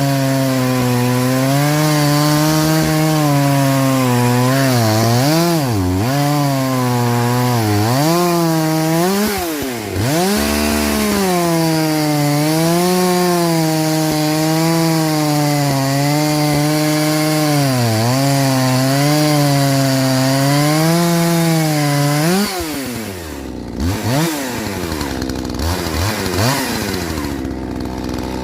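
Husqvarna 543XP two-stroke chainsaw running at high revs while cutting wood, its pitch sagging and recovering again and again as the chain bites. It eases off briefly about ten seconds in. Near the end it drops to a lower speed with short blips of throttle.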